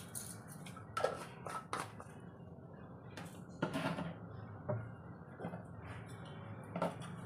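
Scattered light clicks and taps as a small glass spice shaker is handled and shaken over a steel mixing bowl, with a faint low hum throughout.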